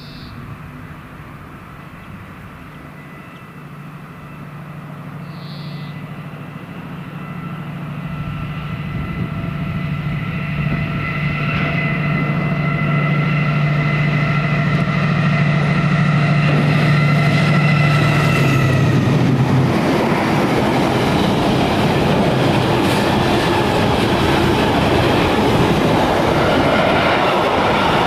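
Class 70 diesel locomotive approaching and passing with an intermodal freight train. Its engine drone grows steadily louder, then about two-thirds of the way through gives way to the even rumble and clatter of the container wagons rolling by.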